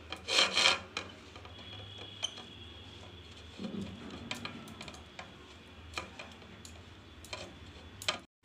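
Silicone pastry brush spreading ghee over a plate: scattered light clicks and taps of the brush on the plate, with a louder brief scrape about half a second in, over a low steady hum.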